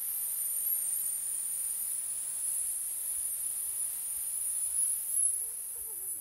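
A woman's long, steady 'sss' hiss, a snake-breath exhale in a yoga breathing exercise, held until she runs out of breath; it stops near the end.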